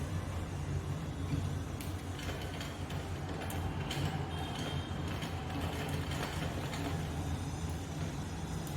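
Sewing machine running steadily, its needle mechanism stitching cloth with a constant low hum.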